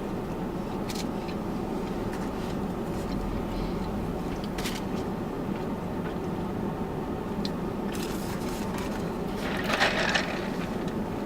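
Steady low hum inside a car, with scattered small clicks and scrapes of food being handled and eaten. A louder crackling rustle comes near the end.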